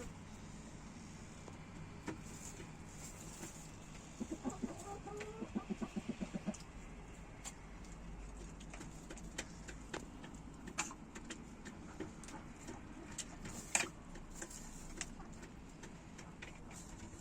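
A chicken clucking in a quick run of about a dozen short notes a few seconds in. A few sharp clicks are scattered around it, the loudest about three-quarters of the way through.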